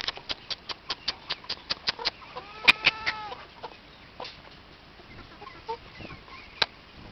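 Chicken cackling: a fast run of short, sharp clucks, about five a second for two seconds, then a few drawn-out calls that rise and fall in pitch, followed by softer scattered clucks.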